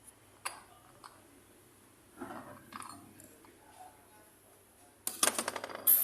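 Light metallic clicks and clinks, then a quick run of rapid metallic rattling near the end, the loudest part.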